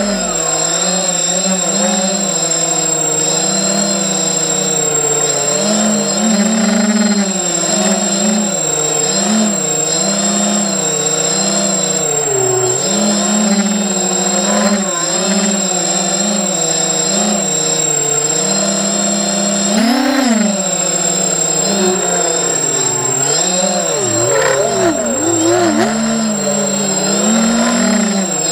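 ZMR 250 racing quadcopter's four brushless motors and propellers buzzing, heard from its onboard camera. The pitch rises and falls with the throttle, with a quick surge about twenty seconds in, over a steady high whine.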